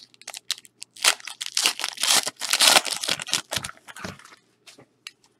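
Foil wrapper of a football trading-card pack being torn open and crumpled: a run of crackling, crinkling noise lasting about three seconds, then a few faint rustles.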